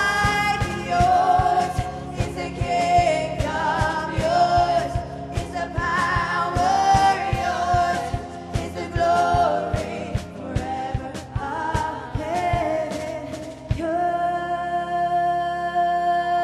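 Live gospel worship music: several women sing a flowing melody into microphones over a drum kit and band. About fourteen seconds in the drums drop out, leaving a held sustained chord.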